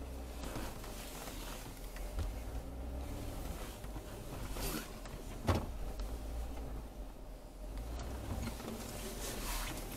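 Jeep Wrangler JKU creeping slowly off-road, a steady low engine and drivetrain rumble heard from inside the cabin, with one sharp knock about halfway through.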